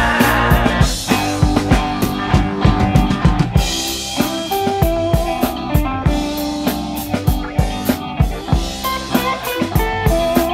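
Instrumental passage of a progressive hard rock recording: a drum kit keeps a steady beat on bass drum and snare under held instrument notes.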